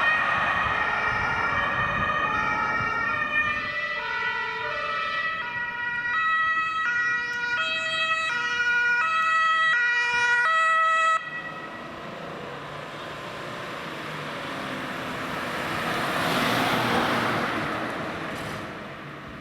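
Several emergency-vehicle sirens sounding at once, each alternating between two pitches. They cut off suddenly about eleven seconds in. Vehicle noise then swells and fades near the end.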